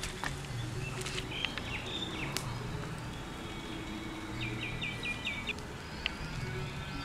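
Small birds chirping: scattered calls, then a quick run of about five chirps a little past halfway, over a low steady background with a few sharp clicks.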